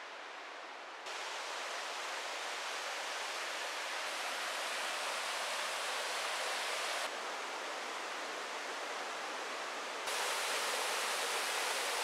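Two-tiered waterfall and its stream rushing: steady falling-water noise. It jumps louder about a second in, drops a little about seven seconds in, and jumps louder again near the end.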